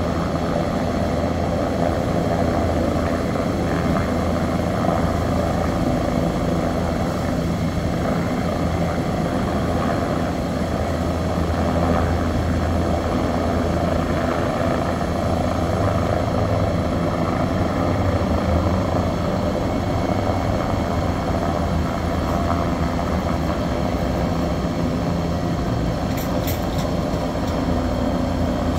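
Steady mechanical hum with a deep low tone, unchanging throughout.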